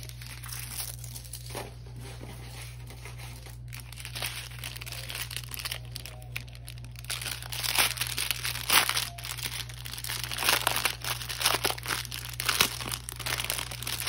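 Clear plastic wrap around a bundle of small bags of diamond-painting drills crinkling as it is handled. The crackling is sparse at first and gets louder and busier about halfway through.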